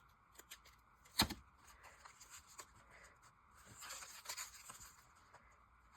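Paper being handled on a craft table: a few light clicks and one sharper tap about a second in, then a brief rustle of paper sliding just before the four-second mark.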